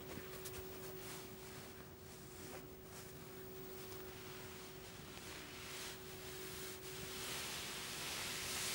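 A single steady pure tone, held without change, under a soft hiss that swells louder near the end.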